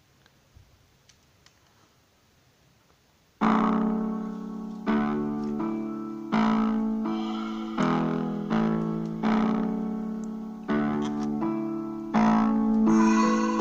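Piano music played back through a small loudspeaker driven by a homemade D718 transistor amplifier, as the amplifier is tested. It starts suddenly about three seconds in, after a few faint clicks, with notes or chords struck about every second and a half, each dying away.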